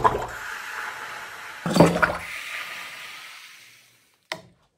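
Water rushing and gurgling up into an upturned graduated cylinder, sucked up by the partial vacuum left as the burning rubbing alcohol inside uses up the air, with a knock about two seconds in. The rushing sound fades out, and there is a short click near the end.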